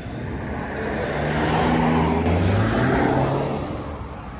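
A car passing close by on the street, its engine and tyre noise swelling to a peak about halfway through and then fading.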